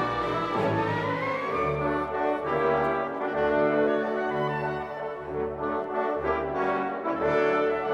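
Background music led by brass instruments, playing slow held notes.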